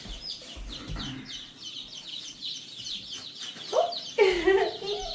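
A brood of day-old chicks peeping constantly: many short, high chirps, each sliding down in pitch, overlapping without pause. A person's voice comes in briefly about four seconds in, louder than the chicks.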